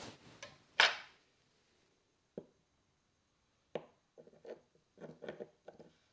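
Moxa utensils, a wooden cup-shaped holder and small containers, handled and set down on a wooden tabletop: a short hissing burst about a second in, then a scatter of light knocks and clacks.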